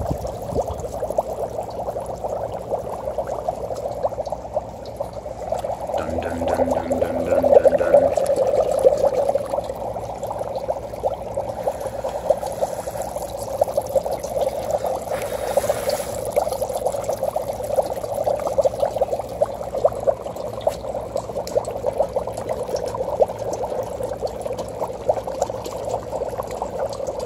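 Dry ice bubbling vigorously in water in a stainless steel bowl: a steady, rapid gurgling of bursting bubbles as the carbon dioxide sublimes, briefly louder about seven seconds in.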